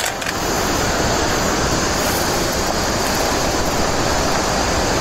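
Water poured into a hot wok over a wood fire, sizzling and hissing steadily as it boils.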